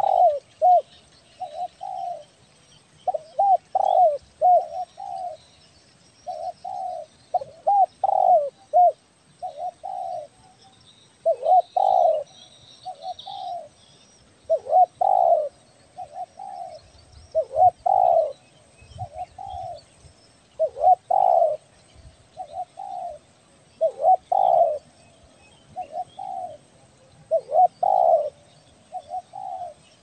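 Spotted dove (tekukur) cooing over and over, a phrase of two to four rolling coos every one to three seconds. This is the full, lively song used as a lure call to draw in wild doves.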